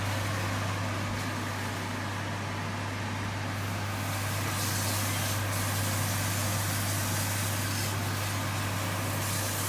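Steady hiss with a constant low hum beneath it, from a gas cooker where a pan of chicken and bottle-gourd curry is simmering.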